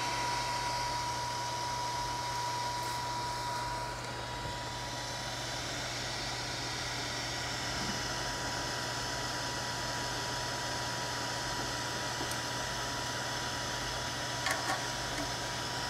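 Steady whirring hiss of a Renkforce RF100 3D printer's cooling fan running idle after the print, with a thin high whine that stops about four seconds in. Two faint clicks near the end.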